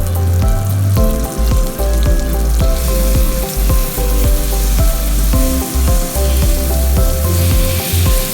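Eggplant frying in oil, a steady hiss of sizzling that grows louder about three seconds in, under background music with a pulsing bass line and held notes.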